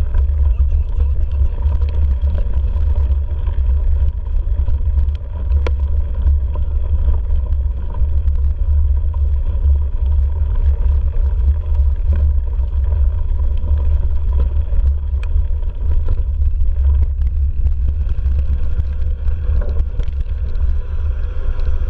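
Mountain bike riding over a leaf-covered dirt trail, heard on the bike's camera microphone as a steady low rumble of wind buffeting and trail vibration, with scattered clicks and rattles from the bike over roots and stones.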